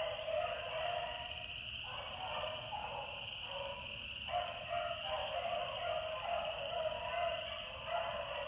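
A pack of rabbit-hunting dogs baying in many overlapping cries, the sign that they are running a rabbit. The cries thin out for a couple of seconds and then pick up again.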